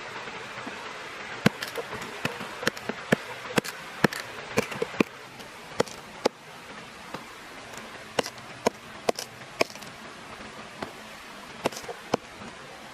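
About twenty sharp, irregular knocks or cracks, some in quick clusters, over a steady rushing background noise.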